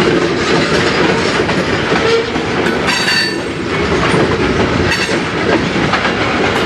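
Freight train of chemical tank cars rolling past: steady sound of steel wheels running over the rails. A brief high wheel squeal comes about three seconds in.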